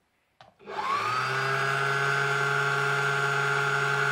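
Brother Compal Star sewing machine's motor spinning up quickly, then running steadily at fast speed while winding a bobbin.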